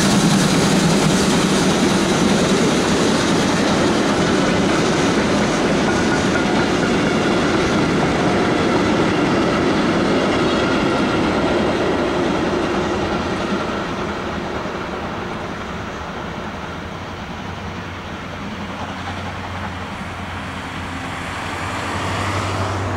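Steam train of locomotive 65 018 and its passenger coaches rolling past, the wheels clicking over the rail joints, the sound slowly fading as the train draws away. Near the end a low hum grows louder, a car approaching on the adjacent road.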